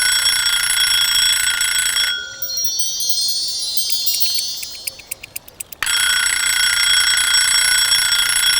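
Alarm clock ringing loudly and steadily. It breaks off about two seconds in for a high whirring glide and a quick run of clicks, then starts ringing again a little before the end.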